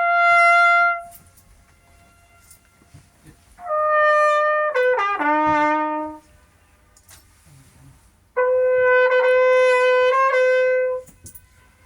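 A brass horn plays three short melodic phrases, about one to three seconds each, from the boat. Between them are pauses in which the echo comes back faintly off the cliffs.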